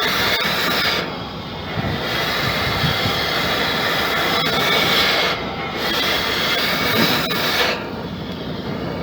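Compressed air hissing from a pneumatic tool worked in bursts, its trigger eased on and off. It cuts out briefly about a second in and again around five and a half seconds.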